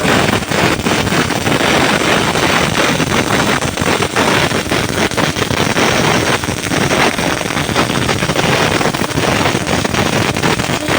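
MIG welding arc burning steadily: a loud, continuous crackling sizzle with no pitch to it.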